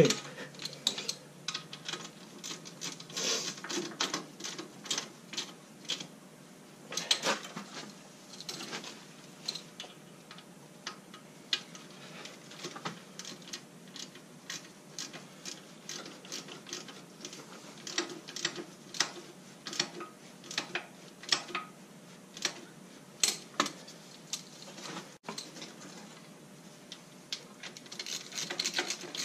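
Irregular metallic clicks and clinks of hand tools, a wrench working the bolts that anchor a Kohler K321 engine to a Gravely 432 tractor frame, with short clusters of clicks and pauses between.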